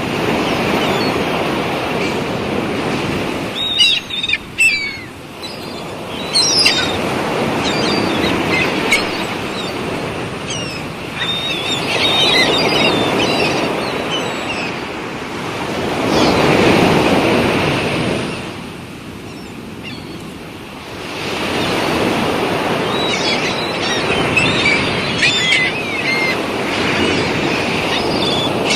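Sea waves washing ashore, swelling and ebbing every few seconds, with birds chirping now and then above the surf.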